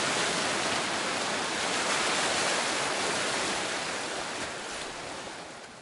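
Steady rushing background noise with no distinct events, fading out near the end.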